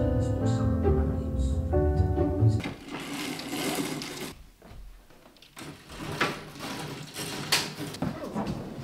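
Soft background music with held keyboard chords that stops suddenly about two and a half seconds in. Quieter room sounds follow, with a few soft rustles and knocks.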